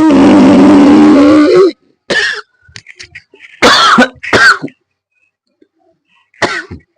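A loud, rasping Ujjayi breath drawn in through a tightened throat for about a second and a half, then a few coughs and throat-clearing. The coughing comes from the throat friction of the constricted breath, which is usual when starting this practice.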